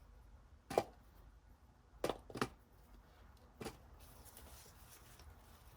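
Potatoes being put onto a scale to be weighed: four short knocks as they land, two of them close together, then faint handling noise near the end.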